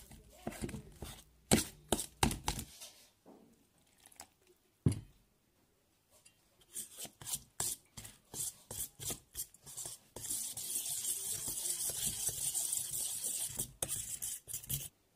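Spoon scraping and clicking against a steel mixing bowl while stirring spices into a moong dal batter, in quick irregular strokes. About two-thirds of the way in, a steady hiss takes over for several seconds and stops shortly before the end.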